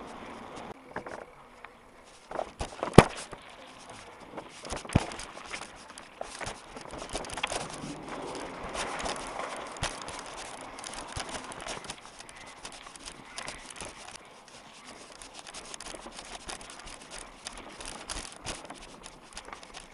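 Mountain bike rattling and clattering over cobblestones, with many irregular clicks and knocks from the bike's frame and its handlebar-mounted map board. A sharp knock comes about three seconds in and another about five seconds in.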